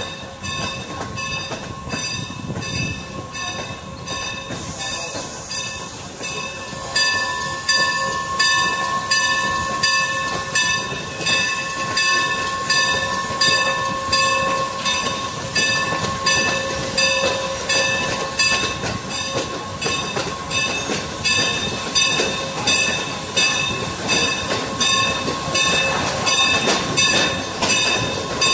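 Passenger train pulled by a steam locomotive running along the track, heard from on board: steady running noise with a regular rhythmic beat and a steady tone, louder from about seven seconds in.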